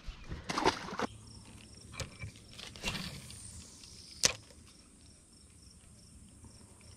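Faint insect chirping, a high pulse repeating a few times a second, with a few sharp clicks and knocks in the first half.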